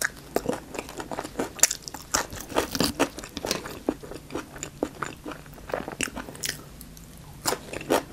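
Close-up eating sounds of a mouthful of banh mi being chewed: a crusty baguette sandwich crunching between the teeth as a run of many short crunches and mouth clicks. There is a brief lull a little before the end, then the chewing picks up again.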